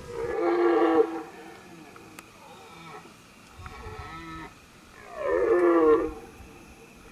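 Red deer stag roaring: two loud, deep rutting roars, one at the start and one about five seconds in, with fainter roars between them.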